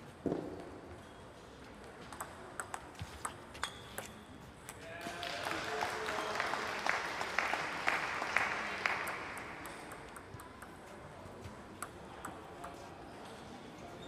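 Table tennis balls clicking sharply off tables and paddles, scattered across a large hall. About five seconds in, a few seconds of clapping and voices swell up and fade.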